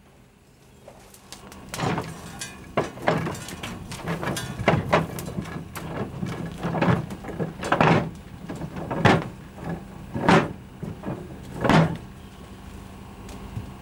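Steam locomotive's ashpan being emptied into the ash pit: about ten irregular rushing, scraping bursts as ash and clinker drop out, over a steady low hum.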